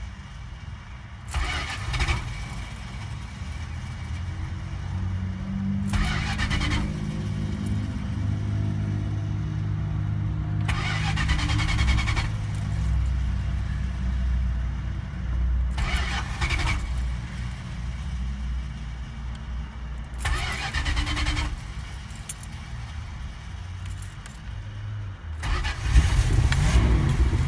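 1980 Chrysler Cordoba's 318 V8 being cranked on the starter again and again, about six separate cranking attempts, and firing up near the end. This is a hard restart after a stall, needing many tries to catch.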